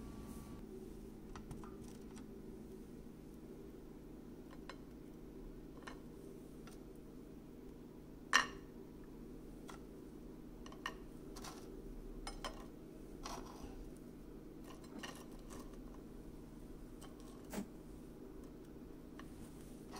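Scattered light clinks and taps on a ceramic plate and a nonstick pan as toasted baguette slices are moved onto the plate, the loudest about eight seconds in. A steady low hum runs underneath.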